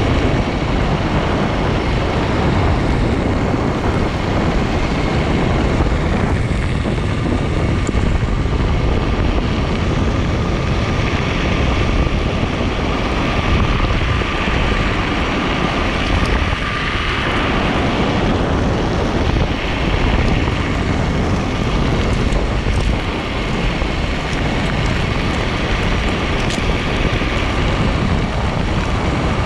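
MetroboardX electric skateboard rolling over a gravel trail on its large rubber tyres: a steady loud rumble and hiss of tyres on loose stones, with wind on the microphone. A faint steady whine runs under it.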